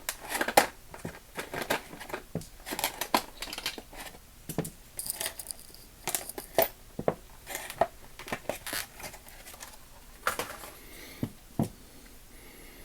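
Small metal sockets being pulled out of a plastic holder, with irregular sharp clicks and plastic crinkling and rustling; the handling thins out near the end.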